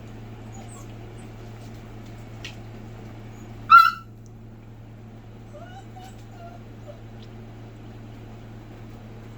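Nine-week-old Bordoodle puppy giving one sharp, high-pitched yelp a little under four seconds in, followed by a few faint whimpers, over a steady low hum.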